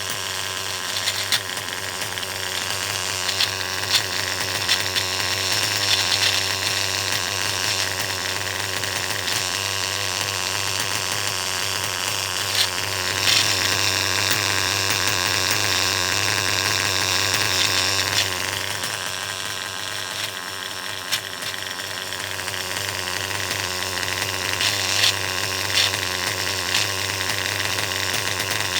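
Engine running steadily, with sharp irregular clicks and ticks over the running. This is the weird noise the owner is asking about, as if something is loose and running around inside the engine.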